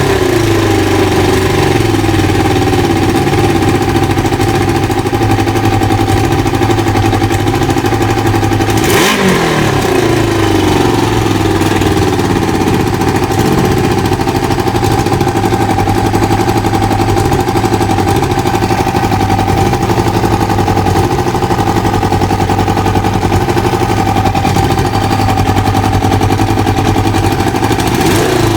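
Kawasaki ZL600 Eliminator's inline-four engine idling, blipped about nine seconds in and again near the end, with the revs also falling back at the start. Each time the revs sink back slowly to idle, the lagging throttle return that the owner blames on the air/fuel mixture screws.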